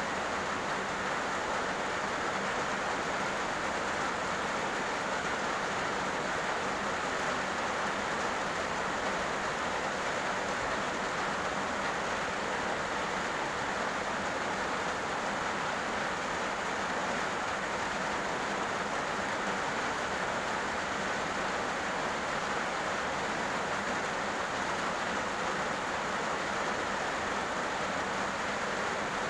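Heavy rain falling steadily on a road surface: an even, unbroken hiss with no thunder.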